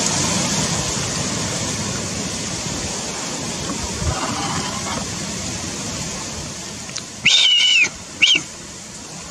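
Wind buffeting the microphone, fading over the first few seconds, then two short, high whistled notes about seven and eight seconds in, the first about half a second long with a slight dip in pitch, the second brief.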